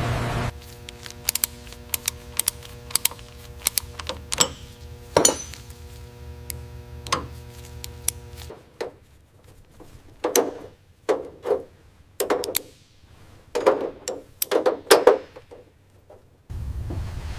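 A series of sharp metallic knocks and clanks, irregularly spaced. For about the first half they sit over a steady hum that stops suddenly, and the later knocks come in quick clusters.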